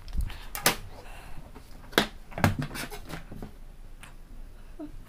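A few sharp clicks and knocks of a wooden tailor's curve ruler being set down and shifted on the cutting table while a curve is chalked onto fabric, the two loudest knocks about two and two and a half seconds in.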